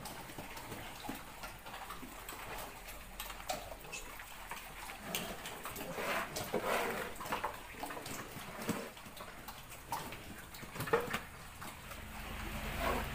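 A sow and her nursing piglets grunting and squeaking in short calls now and then, among scattered light knocks.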